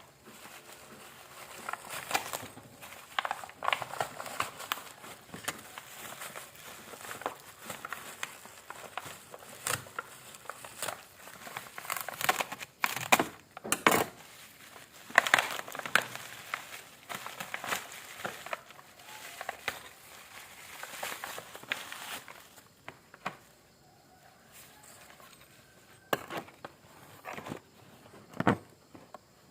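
Packaging crinkling and rustling as it is handled, with irregular clicks; the handling goes quieter after about 22 seconds, leaving a few separate clicks.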